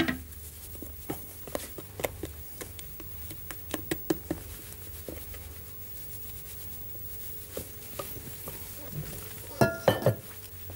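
Stainless-steel stand-mixer bowl being handled as brioche dough is tipped and scraped out of it into a plastic bowl: scattered light clicks and knocks, then a few loud metallic knocks with a short ring near the end.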